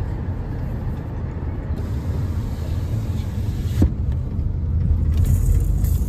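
Road noise inside a moving car: a steady low rumble of engine and tyres, with one brief knock just under four seconds in.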